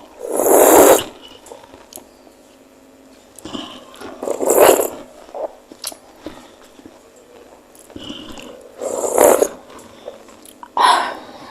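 Eating sounds close to the microphone, slurping and chewing spicy meatball soup in four loud bursts of about a second each.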